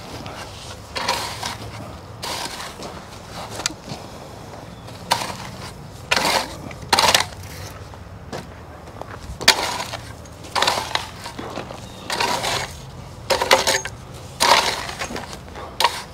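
Shovel, rake and screed board scraping through stone dust, in repeated gritty strokes roughly once a second, unevenly spaced, as the patio base is spread and leveled.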